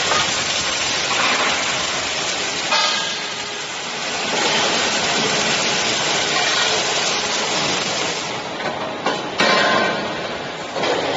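Scaffolding column welding machine running in the workshop: a steady, noisy hiss with short louder bursts about three seconds in and again near the end.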